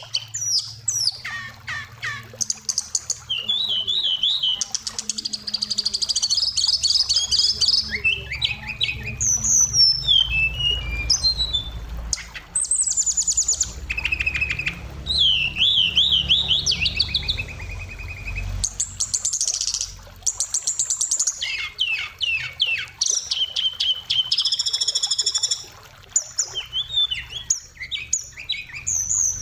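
Oriental magpie-robin singing hard, a fast, varied song of whistles, trills and rapid repeated notes with short pauses between phrases, packed with mimicked phrases of other birds (isian).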